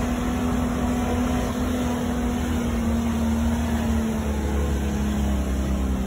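A motor vehicle driving, its engine hum and road noise running steadily while the engine tone sinks slowly.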